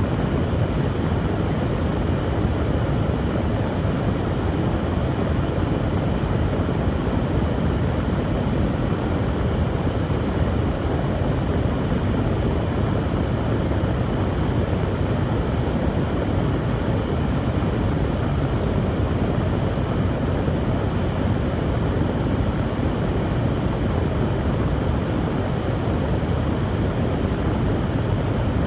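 Hair dryer blowing steadily: the running fan motor and the rush of air.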